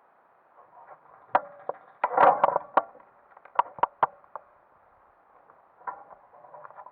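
A series of sharp knocks and clatters, densest and loudest about two seconds in, with a smaller cluster near the end.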